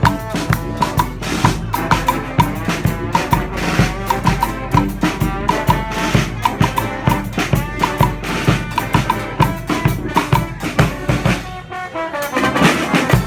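Brass street band with drum kit and bass drum playing live: horns over a steady, driving drumbeat. Near the end the band drops out for a moment, then comes back in together, loud.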